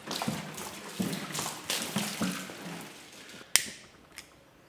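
Liquid poured from a plastic can splashing over a bare engine block, for about three seconds. Then a sharp click and a smaller one about half a second later as a lighter is struck.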